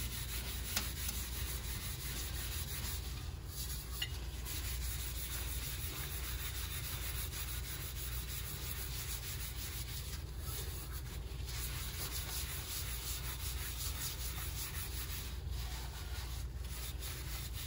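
Steel wool scrubbing back and forth over the wet, hard epoxy coat of a tumbler, a steady rubbing with a few short breaks. The scrubbing wears down the glossy finish to a matte one.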